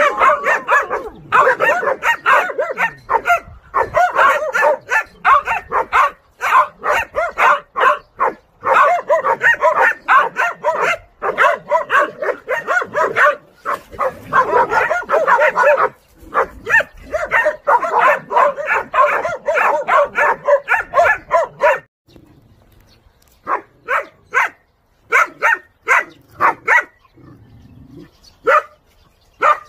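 A three-month-old Dansung hunting puppy barking at a wild boar, fast high-pitched barks several a second, baying to hold the boar's attention. After about twenty seconds the barking thins to scattered barks.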